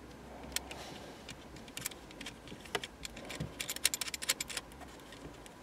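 Small clicks and rattles of cable plugs and leads being handled and fitted into the back of a plastic-cased mobile radio, with a quick run of clicks about three and a half seconds in.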